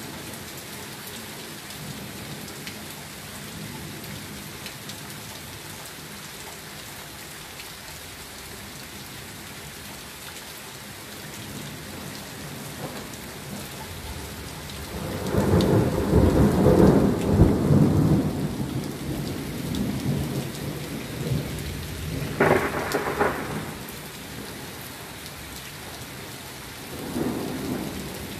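Steady pouring rain, with a long rumble of thunder swelling up about halfway through, a sharper thunder clap a few seconds later, and a smaller rumble near the end.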